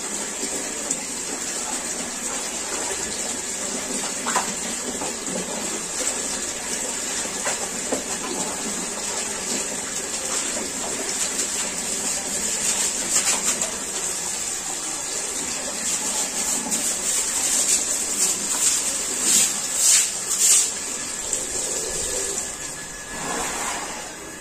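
Tap water running steadily, with a steady hiss, as a bucket fills, while the floor is scrubbed by hand. There are a few louder, brief noises about four-fifths of the way through.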